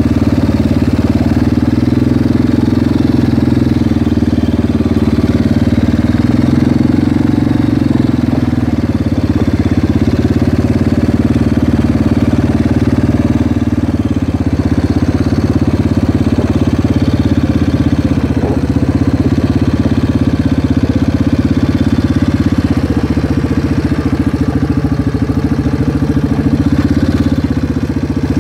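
Small vehicle engine running loud and steady at an even speed, heard close up.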